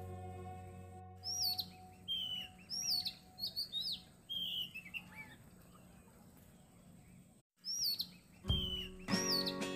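Small birds chirping in quick, short repeated calls, over background music that fades out at the start and returns near the end.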